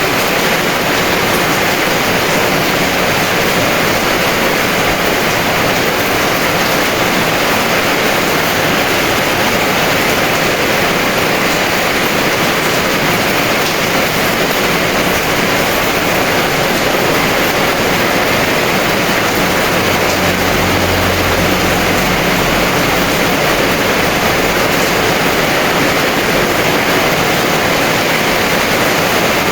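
Heavy rain pouring steadily, an even hiss of water, with a brief low rumble about two-thirds of the way through.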